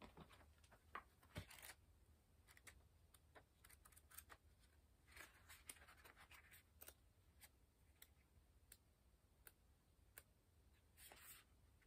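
Near silence: quiet room tone with faint scattered clicks and a few soft scratchy rustles, twice a little longer, about five seconds in and near the end.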